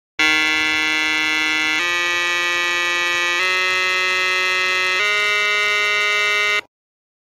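A buzzy electronic tone plays four long held notes, each about a second and a half, stepping up in pitch over the first three, then cuts off abruptly.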